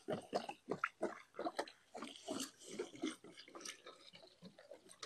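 Water glugging out of a plastic jug as it is poured into a hollow in dry concrete mix, in a quick, irregular run of gulps.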